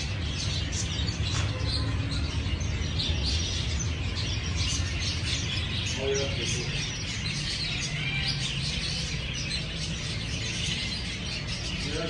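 Many small birds chirping continuously, a dense chatter of overlapping high calls, over a low steady hum.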